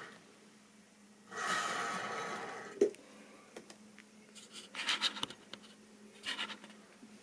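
A model railway locomotive's small electric motor whines for about a second and a half, ending in one sharp click. After that come only scattered light clicks and short rustling noises over a faint steady hum.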